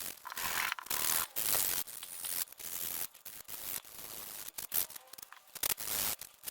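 Sandpaper rubbed by hand over a 3D-printed metal-filled PLA part: irregular rasping strokes, some short and some longer, that work the metal powder up to the surface.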